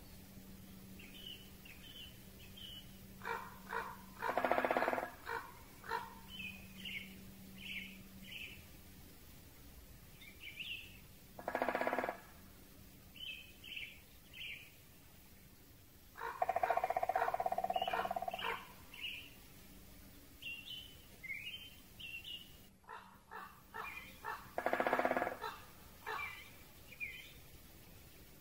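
Woodland birds calling: many short, high chirps from small songbirds, with a louder, lower, hoarse call from a common raven four times. A faint steady hiss lies underneath, from sound sharpening applied to the recording.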